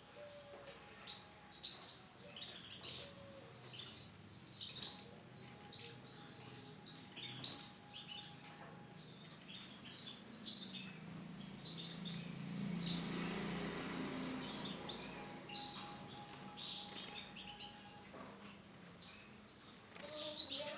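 Female Isabel canary giving short, repeated chirping call notes. A low rumble swells up in the background around the middle and fades again.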